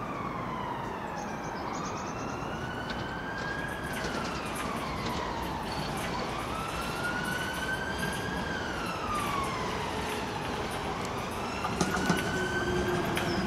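A road emergency vehicle's siren wailing, its pitch slowly rising and falling about every four to five seconds. Underneath is the rumble of an approaching Piccadilly line tube train, growing louder with rail clicks near the end.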